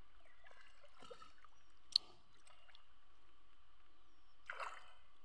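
Faint splashing and sloshing of shallow muddy water as hands work a fishing net, with a sharp click about two seconds in and a short splash near the end.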